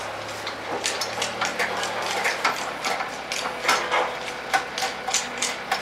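Irregular metal clicks and knocks, a few a second, from hands working at the tiller handle of a pallet stacker.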